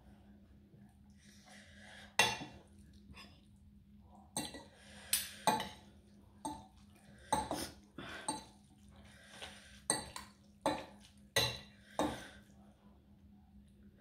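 Metal fork and spoon clinking and scraping against a ceramic plate while food is cut and gathered. There are about a dozen sharp, irregular clinks, starting about two seconds in.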